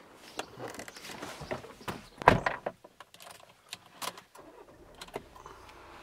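Rustling handling noise with a series of sharp clicks and knocks, the loudest a little over two seconds in, followed by a few lighter clicks.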